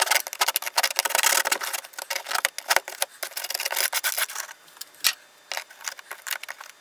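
Hobby knife blade scraping and gouging away hardened scenery material in quick, rasping strokes for about five seconds. Then a few scattered light clicks and taps.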